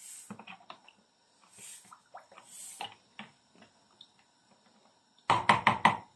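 Salt being shaken out of a cylindrical salt canister: a few short hissing shakes, then a quick run of about five sharp knocks near the end.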